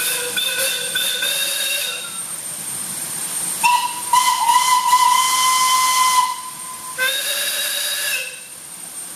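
Steam locomotive whistles blowing three blasts: a lower one of about two seconds, a longer, higher one of about three seconds, then a short lower one.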